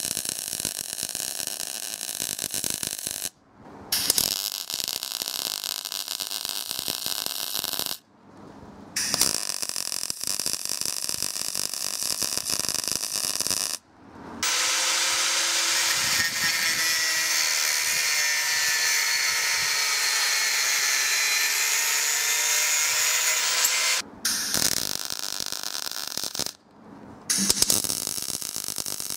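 Electric drill boring holes in a steel bracket, in several separate runs with short breaks. About halfway through, a louder, different power-tool sound runs steadily for about ten seconds before the drilling resumes.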